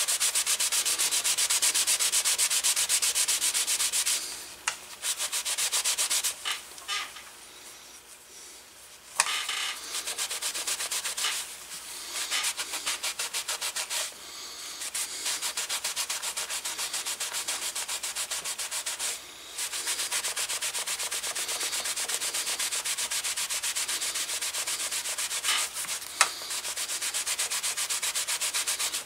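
Cloth rubbed briskly back and forth over a black leather holster, buffing off leather conditioner: quick, even swishing strokes with a few short pauses.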